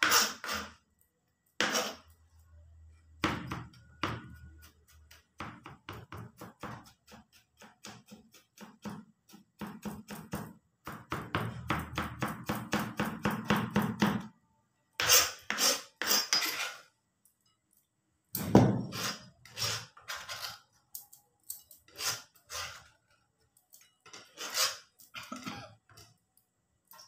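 Kitchen knife chopping on a plastic cutting board: runs of quick sharp taps with short pauses between, the fastest run near the middle.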